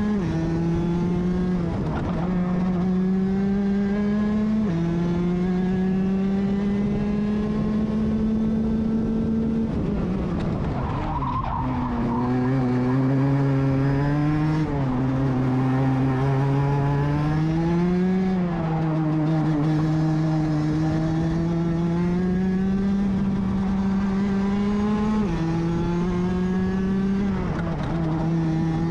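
Rotax DD2 kart's 125 cc two-stroke engine at racing speed, heard from on board the kart. Its pitch climbs slowly along the straights and drops away as the kart slows for corners, most clearly about ten and eighteen seconds in.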